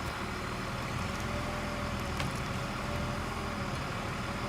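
A crane's engine runs steadily during the lift, with a faint click about two seconds in.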